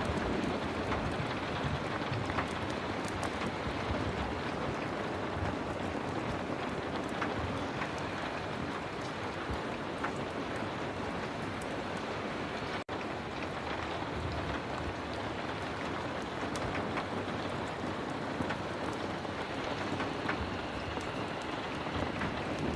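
Heavy rain falling steadily, a dense hiss sprinkled with many small drop ticks. It cuts out for an instant about thirteen seconds in.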